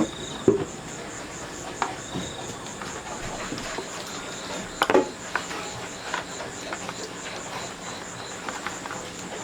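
Insects chirping in a steady high pulsing trill, about three pulses a second. A few scattered knocks and clatters sound over it, the loudest about five seconds in.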